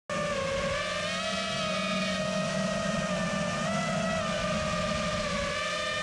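FPV racing quadcopter's motors and propellers whining steadily, the pitch wavering slightly up and down as the throttle shifts.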